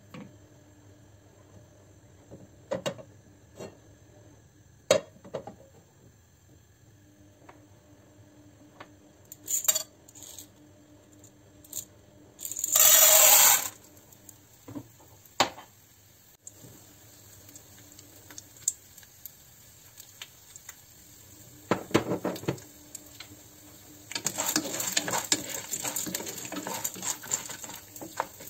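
Dry popcorn kernels poured from a glass into a heated pan of sunflower oil, a loud rattling rush lasting about a second just after halfway, among scattered clinks and knocks of kitchenware. Near the end the kernels are stirred with a wooden spatula, rattling and sizzling in the hot oil.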